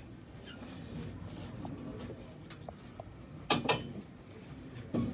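Low room noise in a meeting room, broken by two sharp clicks in quick succession a little past halfway and one more near the end.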